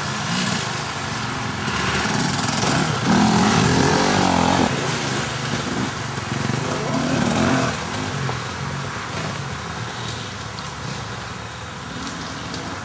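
Off-road dirt bike engines revving hard on a trail climb, the pitch rising and falling with throttle and gear changes. It is loudest about three seconds in and again around seven seconds, then eases off.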